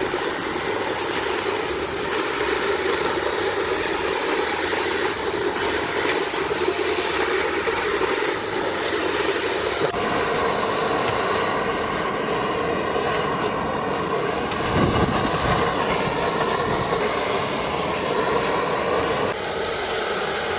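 Gas blowtorch flame running with a steady, loud rushing hiss as it singes the skin of pork trotters; the sound dips slightly near the end.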